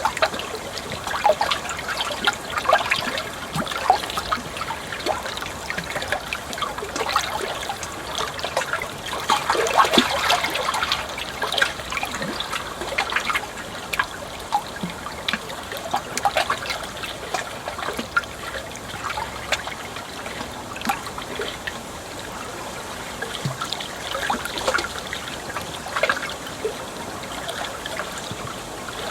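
Water trickling and burbling continuously, with many small irregular splashes, a little fuller about ten seconds in.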